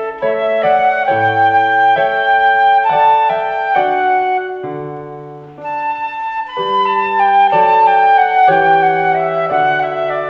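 Concert flute playing a lyrical melody over digital piano accompaniment. About five and a half seconds in, a phrase tapers off and the next one begins.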